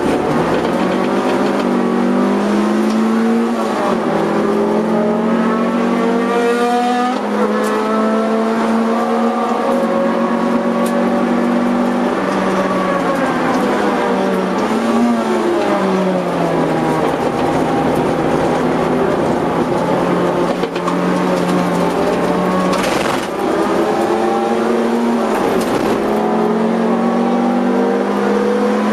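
Honda CR-X EE8's 1.6-litre VTEC four-cylinder heard from inside the cabin under hard track driving. The engine note climbs under throttle, drops away when the driver lifts and brakes for a corner around the middle, and rises again through the gears as the car accelerates hard near the end.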